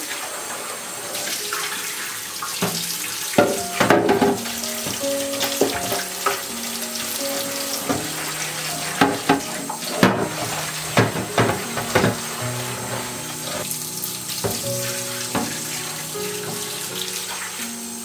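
Kitchen tap running into a sink while a clear plastic fridge vegetable drawer is rinsed and scrubbed with a sponge, with water splashing and the plastic knocking sharply about four seconds in and several times between nine and twelve seconds. Soft piano music plays underneath.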